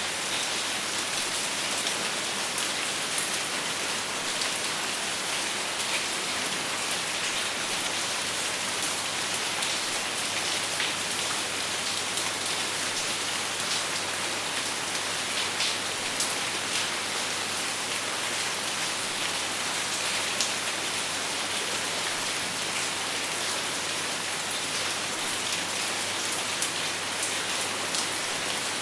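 Steady rain falling and pattering on a surface, with the tick of individual drops and no thunder.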